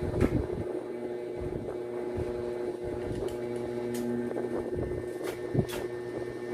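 Steady electric hum of a small motor such as a room fan, with a few sharp clicks and taps of plastic mop parts being handled during assembly.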